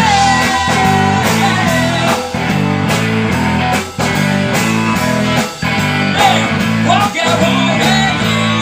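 Live blues band playing loud: guitar lines with bent notes over a repeating bass riff and steady drum beats.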